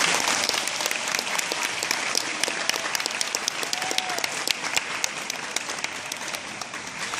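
Audience applauding, many hands clapping together, loudest at the start and easing a little toward the end.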